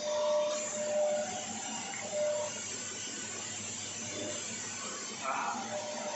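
Steady machine-shop background noise, an even hum and hiss with a thin high whine, broken by a few short mid-pitched tones near the start, about two seconds in and near the end.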